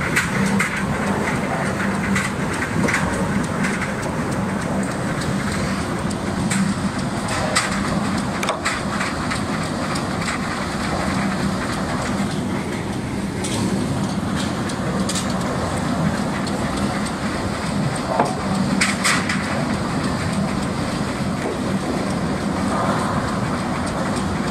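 Tooth roller log debarker running: logs tumbling and rattling against the toothed rollers as their bark is stripped off. A dense, steady mechanical clatter, with a sharp knock every few seconds.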